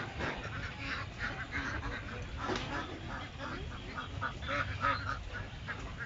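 A flock of ducks quacking, many short overlapping calls with no pause between them.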